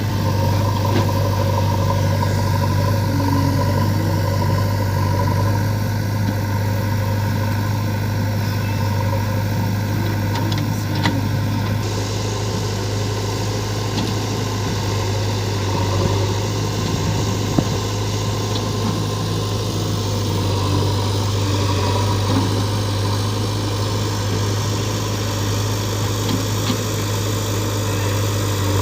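Diesel engines of a JCB 3DX backhoe loader and a Mahindra 475 DI tractor running steadily at an even speed, with a couple of faint knocks.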